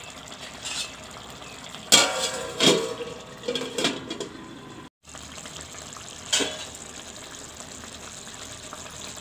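A steel plate used as a lid clanks and rings against an aluminium cooking pot several times about two to four seconds in, and once more about six seconds in, over a steady hiss from the curry simmering on the gas. The sound drops out briefly just before the second clank.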